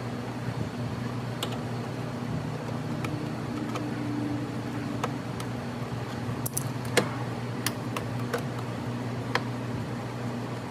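Scattered light clicks and taps of hand work with a screwdriver and plastic trim clips inside a car's front wheel well, over a steady low hum; the sharpest click comes about seven seconds in.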